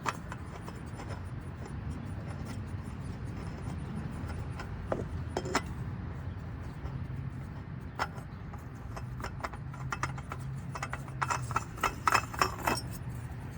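Light clicks and rubbing of a new spin-on oil filter being handled and fitted by hand, over a steady low hum. The clicks come singly at first, then in a quick cluster near the end.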